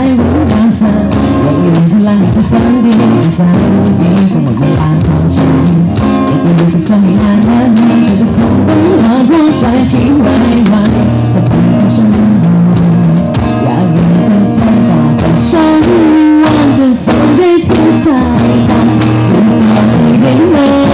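Loud live band music with a singer, the drum kit played right beside the microphone so the hits stand out in the mix.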